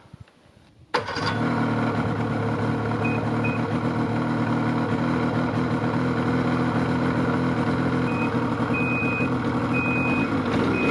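Ski-Doo snowmobile engine starting about a second in, then running steadily. Short high electronic beeps join it, a couple a few seconds in and more near the end: the reverse-warning beeper, the sled being in reverse.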